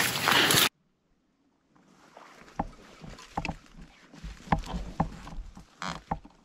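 A loud rushing noise that cuts off abruptly under a second in. After a second of silence come irregular crunches and rustles, like footsteps moving through dry brush.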